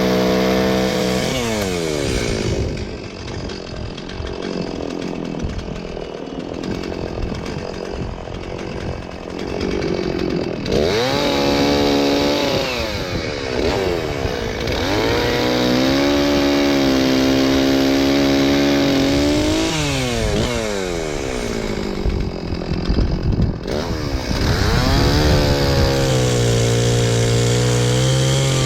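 Stihl 036 Pro two-stroke chainsaw cutting storm debris: the engine revs high for several seconds at a time and drops back to a low idle between cuts, several times over.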